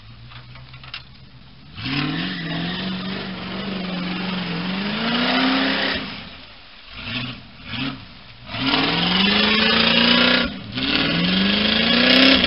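Off-road 4x4's engine revving in repeated surges as it drives through mud. There is a long rise in pitch about two seconds in, two short blips in the middle, then two more long rising surges near the end.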